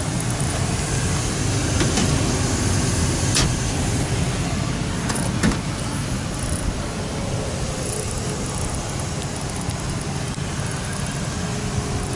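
A steady rush of noise with a few light clicks, then a sharper click about five and a half seconds in as the pickup's rear-door latch and handle are worked.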